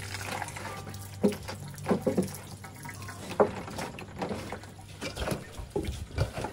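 Water running into a metal basin of grated coconut, then hands squeezing and kneading the wet coconut, with irregular wet squelches and splashes. This is the pressing of grated coconut to extract coconut milk.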